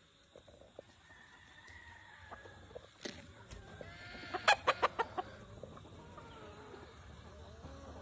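Gamefowl rooster giving a quick run of about six loud clucks about halfway through, followed by fainter clucking calls from the fowl.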